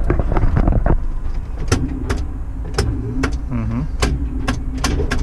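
A tower crane's electrical contactors click sharply about seven times as the crane's controls are tried out after a contactor with blackened auxiliary contacts was replaced. Under the clicks is a steady low machine hum, and a steady drone tone comes in about halfway through.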